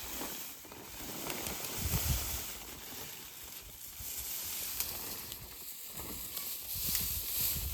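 Wind gusting on the microphone outdoors, in irregular low rumbles over a faint steady hiss, with a few small clicks.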